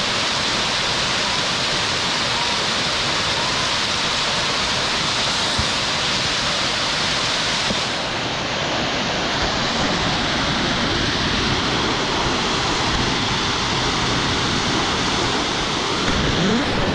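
Waterfall rushing steadily: a continuous, even hiss of falling water.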